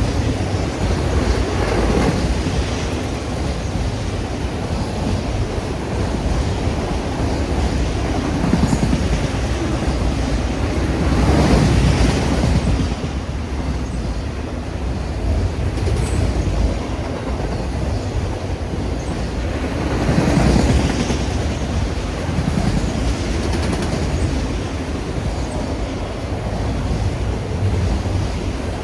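Freight train cars rolling past, wheels clattering over the rail joints with a faint squeal now and then; the noise swells and eases as cars go by.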